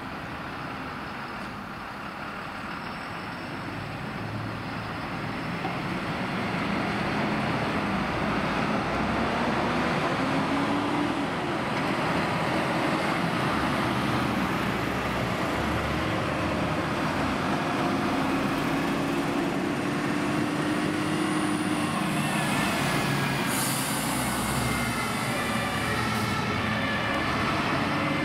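Diesel engines and tyres of MAN fire engines driving past on an emergency run. The noise builds over the first six seconds, then stays loud as the trucks pass one after another.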